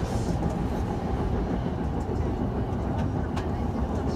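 JR East E235-series Yamanote Line train running, heard inside its rear cab: a steady low rumble of wheels on rail, with a few faint clicks in the second half.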